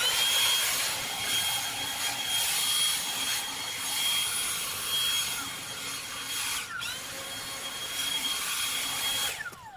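Cordless leaf blower spinning up with a high motor whine over rushing air and running steadily as it blows grass clippings, easing off and spinning up again about two-thirds through, then winding down with a falling whine near the end.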